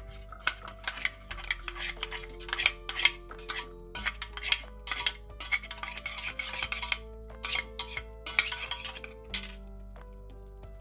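A metal spoon scrapes and clinks against a perforated stainless steel cone strainer, pressing blended aloe vera gel through the holes in a run of irregular strokes that stops near the end. Soft background music plays underneath.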